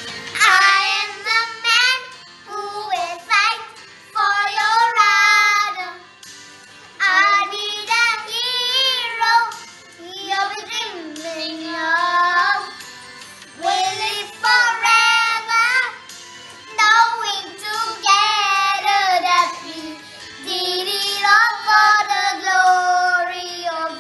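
Child singing a slow song in phrases of a few seconds with short breaths between, the held notes wavering, over a soft backing.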